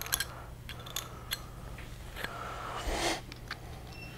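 Small light clicks and scrapes of a thin hex-driver tip against the metal case of an RC car's center differential, picking out thick, putty-like diff fluid from around the screw holes. A brief louder rustle comes about three seconds in.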